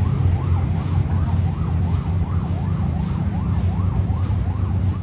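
Distant emergency-vehicle siren, its pitch sweeping quickly up and down two to three times a second, over a steady low rumble like engine or traffic noise.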